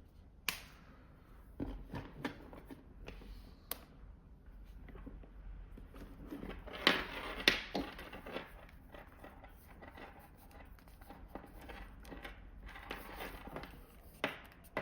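Faint handling noise from charging cables and devices being picked up and connected: scattered light clicks and rustles, with two sharper clicks about seven seconds in.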